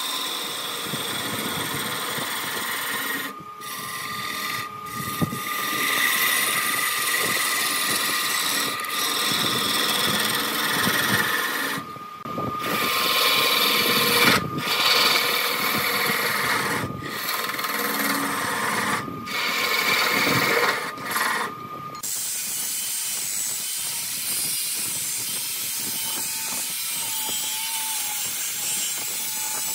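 Wood lathe running while a turning tool cuts the spinning wood: a scraping, hissing cut over a steady whine, broken by several brief dropouts. About two-thirds through, it changes to a smoother, even hiss.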